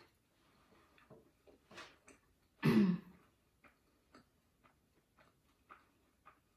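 Small scattered clicks and taps of eating at a table, with one short throat-clearing sound about three seconds in.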